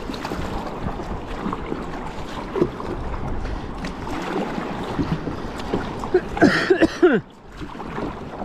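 Steady wind and water noise around a kayak on the sea, with scattered light knocks. About six seconds in comes a short cluster of loud cries that fall in pitch, then the noise dips briefly.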